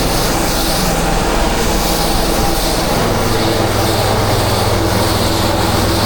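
A 10 GPM pressure washer's engine running steadily, with an even hiss of water spraying over it.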